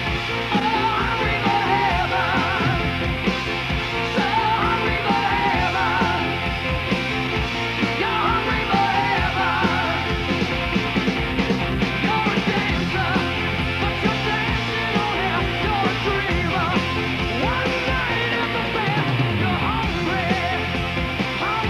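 Rock music with a singing voice, playing steadily throughout.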